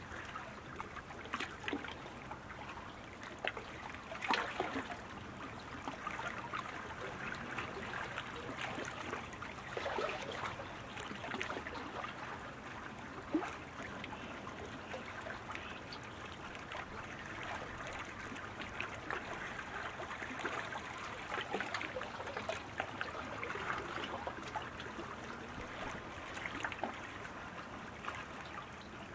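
Water splashing and trickling as sprint-canoe paddles work the water, with scattered sharper splashes at irregular moments.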